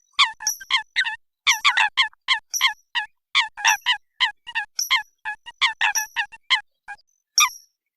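Eurasian coots calling: a rapid string of short, sharp, metallic calls, several a second, with a brief pause about seven seconds in.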